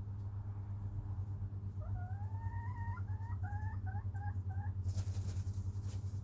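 A chicken calls: one long rising note, then a quick run of short notes. About five seconds in comes a second of wing-flapping from a rooster beating its wings. A steady low hum runs underneath.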